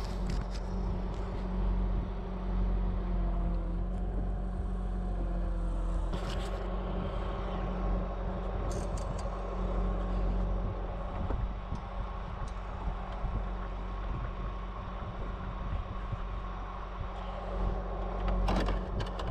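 Bucket truck's engine running steadily, a low even hum, with a few sharp clicks and knocks of handling in the fiberglass bucket.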